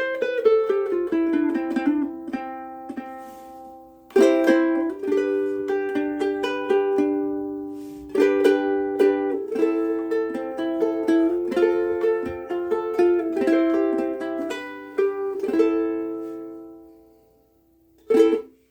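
Oli X1 mahogany soprano ukulele with higher-tension strings being played: picked notes mixed with strummed chords, ringing out with long sustain. The notes die away about a second before the end, followed by one short chord.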